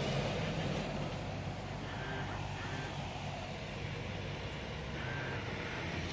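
Volkswagen Golf VI Variant 1.2 TSI's four-cylinder turbo petrol engine running, with a steady low hum over a constant rushing noise: the buzzing noise the owner is recording.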